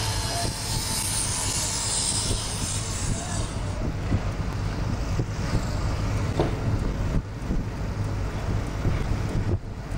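Steady low rumble of a moving car, with road and wind noise; a high hiss fades out about three and a half seconds in.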